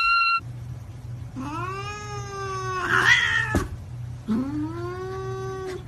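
A cat meowing in two long, drawn-out yowls, each rising at the start and then held, after a short rising call that cuts off just after the start. A steady low hum runs underneath.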